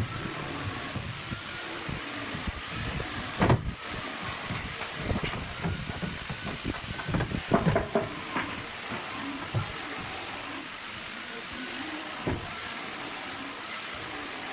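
Steady hissing background noise with a few sharp knocks, the loudest about three and a half seconds in and a cluster near eight seconds.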